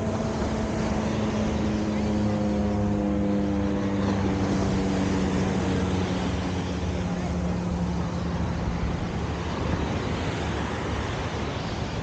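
A passing engine's steady drone that slowly falls in pitch and fades out about ten seconds in, over surf and wind noise on the microphone.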